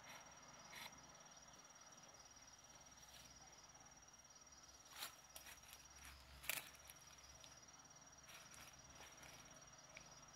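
Faint, steady, high-pitched insect trill, typical of a cricket, that breaks off briefly about six seconds in. A few soft clicks, the loudest about six and a half seconds in.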